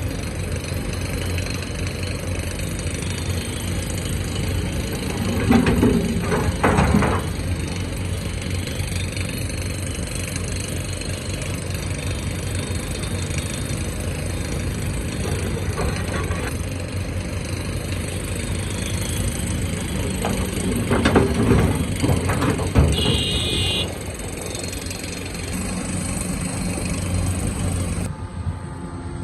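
Excavator's diesel engine running steadily, with two louder stretches of heavier working about six and twenty-one seconds in.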